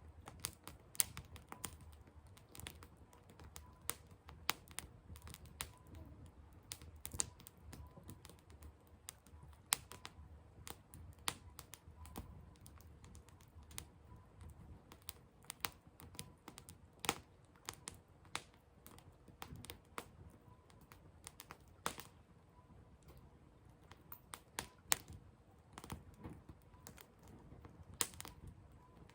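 Burning firewood crackling, with irregular sharp snaps and pops over a low rumble of flames.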